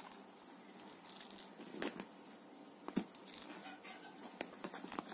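Domestic cat wrestling with a furry toy mouse on a cloth couch cover: soft rustling and scuffing of fur and claws against the fabric, with a few sharp scratches about two and three seconds in and several more near the end.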